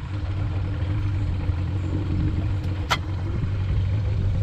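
Boat motor idling at low speed with a steady low hum. A single sharp click sounds about three seconds in.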